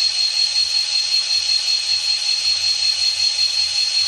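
Onboard sound decoder of an N scale EMD SD40T-2 model playing diesel prime mover sound through the model's tiny speaker at low throttle: a steady, thin engine drone with a constant high tone running through it.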